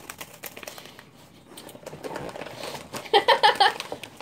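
Foil snack wrapper crinkling as it is handled, with a voice breaking out in a few short rapid bursts near the end.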